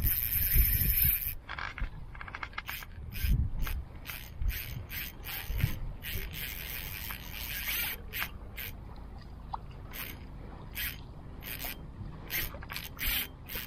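Fishing reel ratcheting in irregular bursts, with longer runs near the start and about six seconds in, as a hooked fish is played: drag clicking and reel winding.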